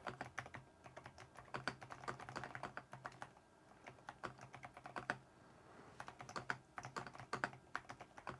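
Typing on a Keychron V6 Max full-size mechanical keyboard: runs of quick, quiet key clacks, with a short lull a little before halfway.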